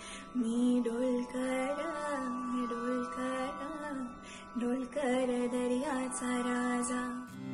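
A woman singing a Marathi Koli folk song unaccompanied, her voice sliding through long held, ornamented notes with brief pauses for breath.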